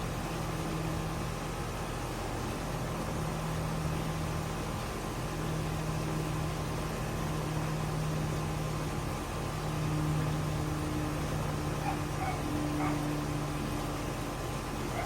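2006 Goodman GPH13 two-ton packaged heat pump running steadily in cooling mode: a steady low hum under an even rush of air.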